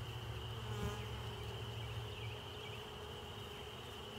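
Honeybees buzzing steadily around an open hive, a low continuous hum.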